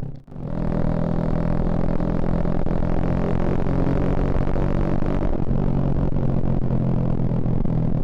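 Suzuki Shogun Axelo R's single-cylinder four-stroke engine running with a steady droning exhaust note. The sound cuts out briefly just after the start, and the engine note shifts about five seconds in.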